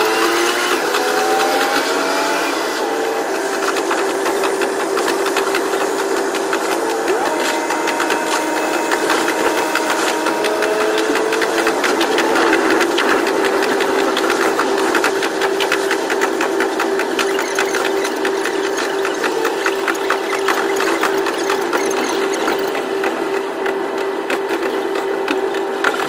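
KiHa 122 series diesel railcar running, its sound sped up to double speed: the engine and transmission tones rise in pitch over the first couple of seconds as it accelerates, then hold nearly steady with a couple of small steps, over a fast patter of clicks from the wheels.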